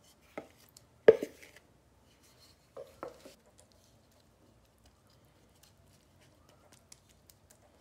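A wooden spoon knocks against the bowl and scrapes a wet spinach-and-zucchini filling into a metal baking tin. There are a few sharp knocks in the first three seconds, the loudest about a second in, then faint scrapes and small clicks as the filling is spread.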